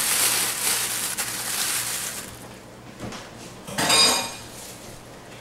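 Latex gloves rustling as they are peeled off and balled around metal utensils, then, about four seconds in, a single clink with a short ring as a metal fork and spoon are dropped into the sink.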